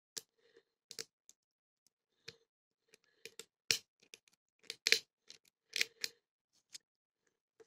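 Irregular small metallic clicks and ticks of a lock-picking tool working in a small brass padlock during an attempt to bypass it, with a handful of louder clicks in the middle.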